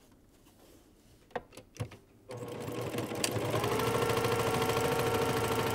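Baby Lock Accomplish straight-stitch sewing machine sewing a seam. A few light clicks come first. About two seconds in the machine starts, speeds up over a second, then runs steadily at a fast stitching rate.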